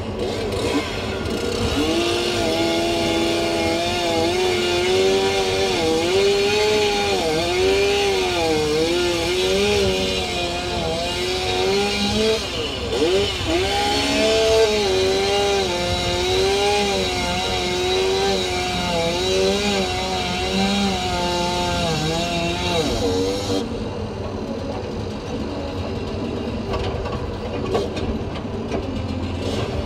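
Two-stroke chainsaw running, its pitch rising and dipping over and over with throttle and cutting load, over a steady low engine rumble. About three-quarters through, the saw's wavering note drops away and the lower rumble carries on.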